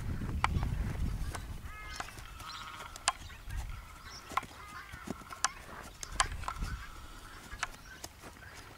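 A mare and foal walking on grass: scattered sharp knocks and soft footfalls from their hooves. A faint chattering animal call keeps returning from about two seconds in.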